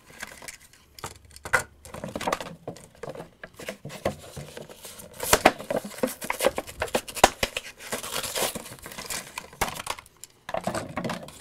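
Cardboard backing cards tearing and plastic blister packs crinkling as die-cast monster trucks are pulled out of their packaging, in irregular rips and crackles.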